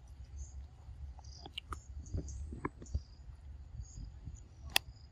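Macaques handling and eating food: scattered soft clicks and crackles, with one sharp click near the end, over a low rumble.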